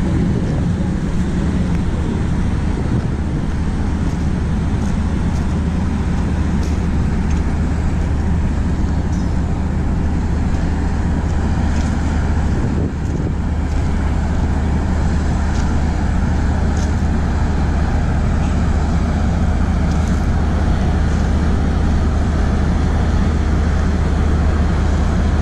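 Steady low mechanical rumble with a deep, even hum, like an engine running at idle.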